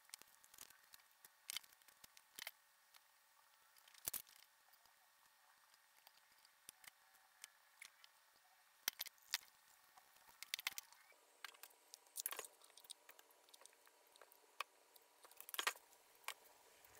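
Faint, scattered clicks and rustles of masking tape being peeled and picked off a freshly painted drill press head casting, with a small screwdriver prying at the masking.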